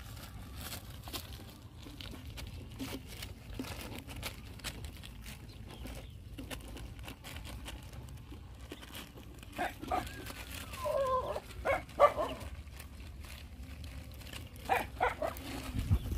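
A group of puppies eating off a plastic sheet: scattered clicks of chewing and nosing at the food over a steady low rumble. About ten to twelve seconds in come louder sharp sounds and a short falling whine from a dog, with a few more sharp sounds near the end.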